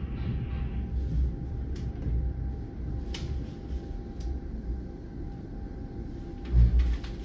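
Low rumble of an NJ Transit Comet commuter railcar rolling slowly, heard from inside the car, with a few sharp clicks and knocks and one heavier thump near the end.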